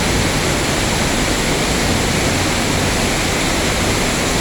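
Waterfall pouring, heard up close: a steady, loud rush of falling water.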